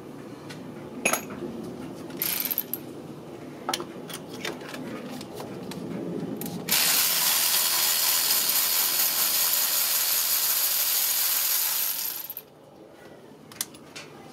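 Light metallic clicks and clinks of tools and parts being handled, then a loud, steady hiss that starts suddenly about halfway through, lasts about five and a half seconds and cuts off.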